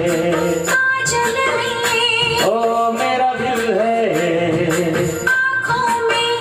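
A man singing a Hindi song into a microphone, holding long notes, over recorded music with a steady beat.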